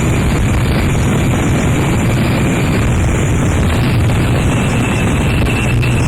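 Harsh noise music from a cassette: a dense, unbroken wall of distorted noise with a low droning hum underneath.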